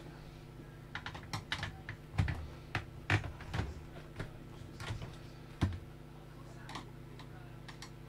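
Irregular plastic clicks and snaps as a flat screwdriver pries at the clips of an all-in-one computer's plastic casing and speaker bar. The clicks come in a cluster between about one and four seconds in, with one sharp click near six seconds, over a faint steady hum.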